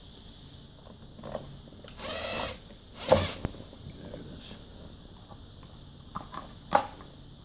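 Ryobi 18V cordless impact driver running in a short half-second burst about two seconds in, driving a screw to fasten a couch leg, followed a second later by a loud knock and, near the end, a sharp click.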